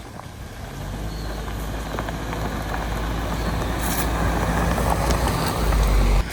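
Car engine running, growing steadily louder, then cutting off abruptly near the end.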